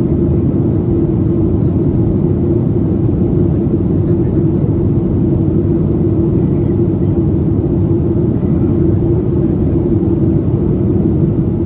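Steady cabin drone of a Boeing 737-800 in flight, heard from a window seat over the wing: engine and airflow noise from its CFM56-7B turbofans, with a steady low hum over a broad rumble.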